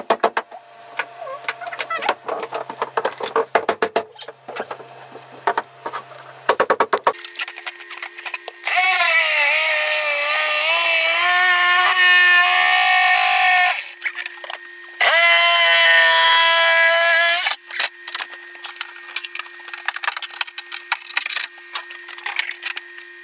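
A handheld power tool runs in two bursts of several seconds each, starting and stopping abruptly, its pitch dipping as it works. Before that comes a stretch of rapid clicking and knocking.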